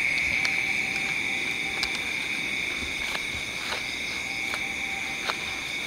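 Night chorus of crickets and frogs, a steady high-pitched trill that never breaks, with scattered light clicks and taps over it.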